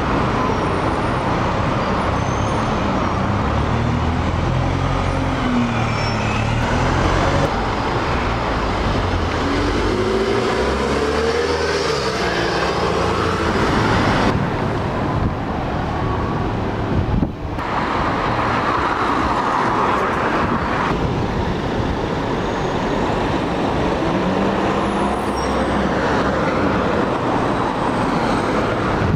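Bus engines pulling away and accelerating, their pitch rising and falling, over steady road traffic noise.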